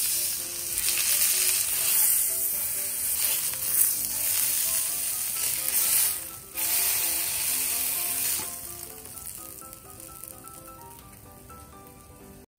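Block of beef round searing in oil in a frying pan with sliced garlic, sizzling loudly as it is turned with tongs. The sizzle drops briefly about six seconds in and fades away after about eight seconds, once the meat is out of the pan.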